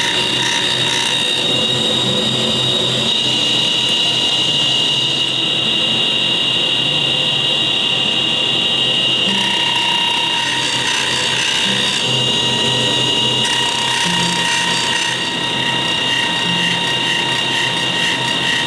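Workshop power machinery running with a steady high whine and a mechanical rattle that shifts in pattern every few seconds.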